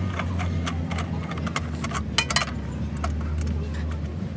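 Metal T-bar wrench clicking and clinking against a truck wheel's hub cap as it is worked, with a couple of sharper clinks about two seconds in, over a steady low hum.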